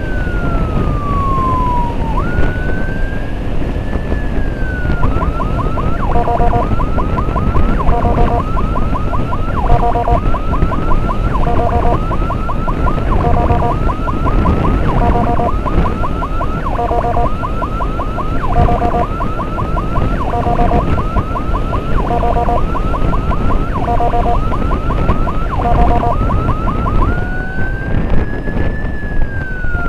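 Electronic emergency siren in a slow rising-and-falling wail, which switches a few seconds in to a rapid chirping yelp broken by short steady horn-like tones about every second and a half, then returns to the slow wail near the end. Heavy wind and road rumble from riding on a motorcycle run underneath.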